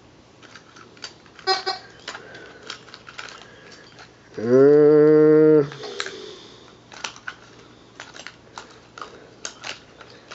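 Garrett Compadre metal detector with an 8-inch coil giving a target tone as metal passes the coil: a low, buzzy tone that rises quickly and holds steady for about a second, midway through. Faint scattered clicks and taps come before and after it.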